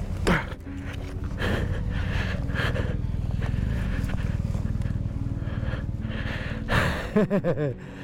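A motorcyclist breathing hard just after falling off his bike in a rut, over a low steady rumble, with a few short strained groans near the end.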